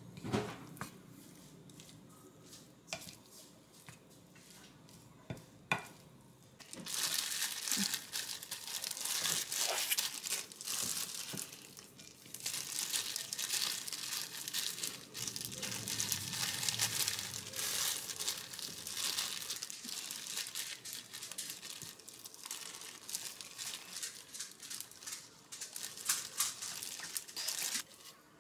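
A few light knocks, then from about a quarter of the way in, steady crinkling of a thin disposable plastic glove as a gloved hand presses and spreads cooked rice over a sheet of dried seaweed for gimbap. The crinkling stops near the end.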